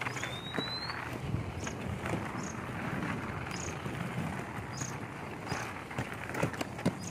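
Inline skates rolling on a paved path: a steady rolling rumble with scattered sharp clicks and knocks from the strides. A short rising whistle sounds near the start.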